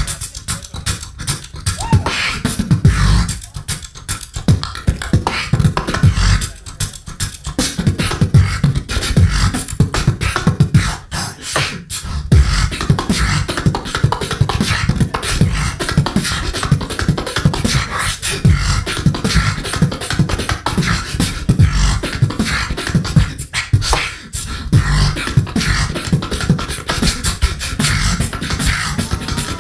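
Solo beatboxing into a handheld microphone through the PA: a dense, fast run of mouth-made kicks, snares and hi-hats over deep bass, with a few brief breaks in the pattern.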